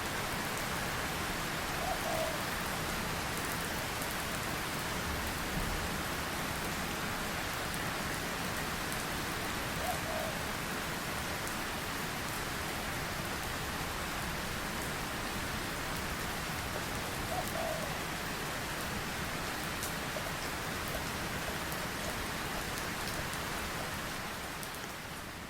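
Steady rain falling, with fine drop ticks, and three brief faint calls spread through it. It fades out near the end.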